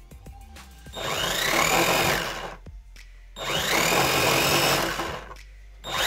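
Small drone motor and propeller spinning up in short test bursts: twice it starts with a rising whine, runs steadily with propeller whoosh, then winds down, and a third burst starts right at the end. The motor is spinning the wrong way because its polarity is reversed.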